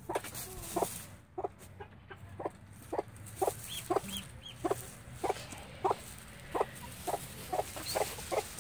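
Hen clucking steadily, about two short low clucks a second: the calling cluck a mother hen keeps up to her brood. A few faint high peeps come in near the middle.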